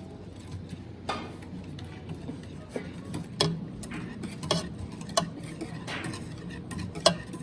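A few sharp, irregular clicks and knocks of hard objects striking, the loudest near the end, over faint background music.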